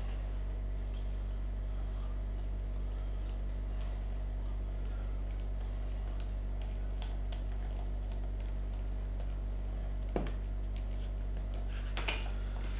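Small metal clicks and taps of screws being fitted into a scooter carburettor with a screwdriver, with a sharper tap about ten seconds in and another near the end, over a steady low electrical hum.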